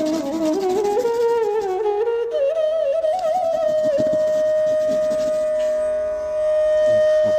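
Background instrumental music. The melody slides and wavers in pitch, then settles on one long held note about halfway through.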